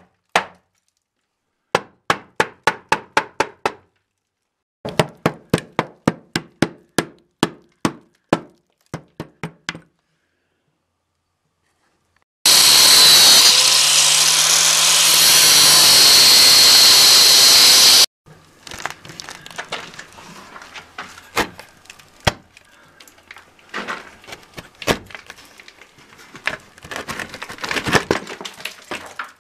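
Hammer striking around an old wooden window frame set in concrete, in quick runs of about four to five blows a second during the first ten seconds. An angle grinder then cuts into the wooden frame for about five seconds, with a steady motor whine that stops suddenly. Irregular knocks and cracking follow to the end.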